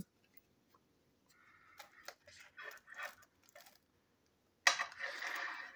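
Clear plastic packaging bag being handled: faint scattered crinkles and clicks, then a sudden louder rustle near the end lasting about a second.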